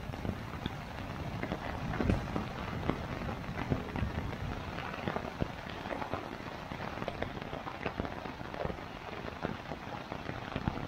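Steady rain falling on a Sierra Designs Full Moon 2 tent's rain fly, heard from inside the tent as a dense hiss with many separate drop hits.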